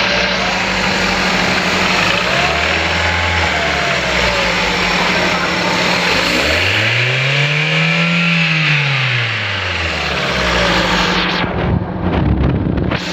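Engine running and being revved: a short rise and fall in pitch, then a longer, smooth rev up and back down, with rougher, uneven running near the end. The engine has its number 1 cylinder not firing, which its owner describes as knocking and jerking.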